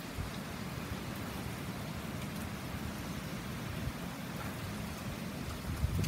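Typhoon rain falling steadily, with wind rumbling on the microphone and a gust buffeting it just before the end.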